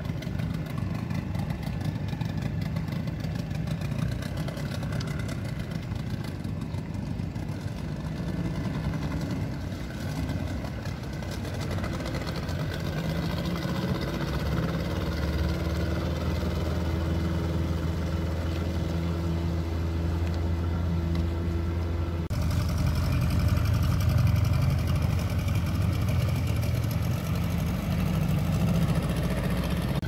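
Boat engine running steadily, a low hum that changes tone abruptly about two-thirds of the way through.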